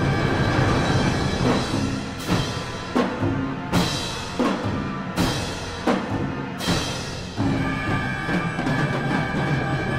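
Chinese orchestra with trumpets and drums playing loud sustained chords, punctuated in the middle by about six clash-cymbal crashes roughly two-thirds of a second apart.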